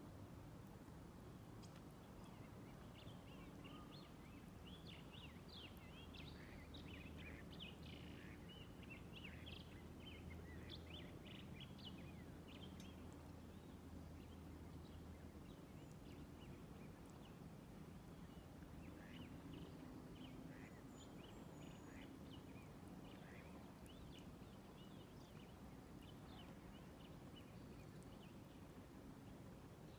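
Faint chirping of small birds: many quick, high chirps in a busy run during the first half, a short lull, then more scattered chirps later, over a low steady rumble.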